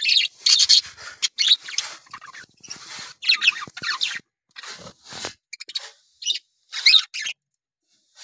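Budgerigars chirping and chattering in quick, irregular high-pitched bursts.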